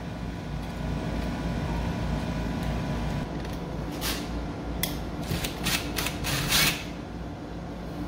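DeWalt cordless drill driver running at low speed, driving a wall switch's mounting screws into the electrical box. A steady motor sound, then several sharp clicks about halfway through as the bit works the screws and the switch is handled.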